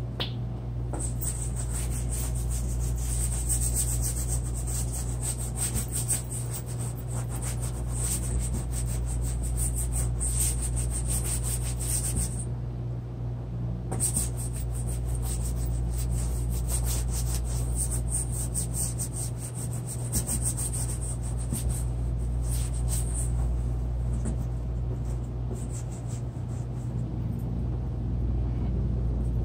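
Steady, scratchy strokes of a drawing or painting tool rubbing across the artwork's surface, with a pause of about a second and a half near the middle, over a steady low hum.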